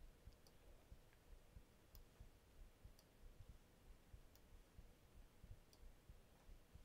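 Near silence: room tone with a faint steady hum and a handful of faint, scattered clicks from computer mouse work.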